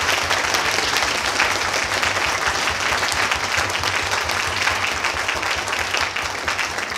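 Audience applauding: many people clapping at once, steady throughout and thinning out near the end.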